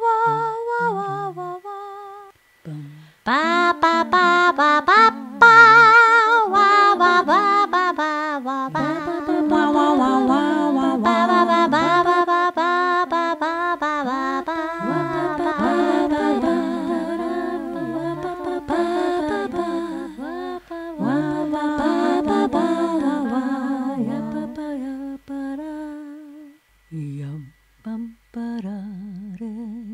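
Several voices humming and singing a wordless a cappella vocal improvisation, with wavering, warbling lines layered together. The singing thins out to a few short hums near the end.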